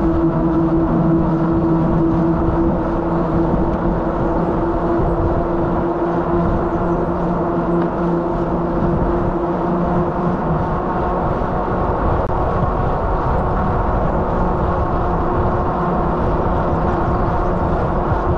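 Steady rush of wind and road noise from a bicycle riding on asphalt, with a steady hum of knobby tyres rolling on the pavement that eases off about ten seconds in.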